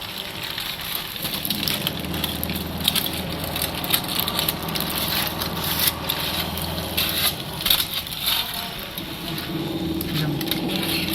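Freshly baked whole chicken crackling and sizzling while it is handled and turned over hot, with dense irregular crackles and small clicks. A low steady hum runs underneath for several seconds in the middle.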